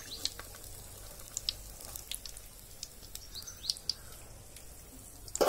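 Hot oil sizzling gently in a kadai as tomato bajjis deep-fry, with scattered bird chirps. A single sudden loud knock comes right at the end.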